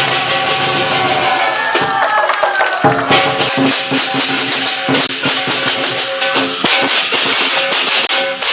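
Music with a steady beat of drums and shaken percussion over sustained pitched notes, with a sliding tone about two seconds in.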